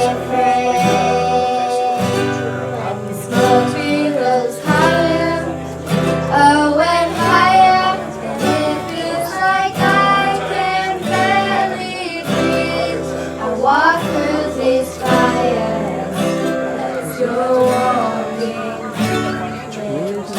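A song with singing over acoustic guitar.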